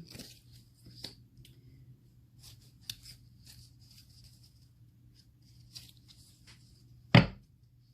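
Quiet handling of tarot and oracle cards: faint rustling and light clicks, then one loud, short thump near the end.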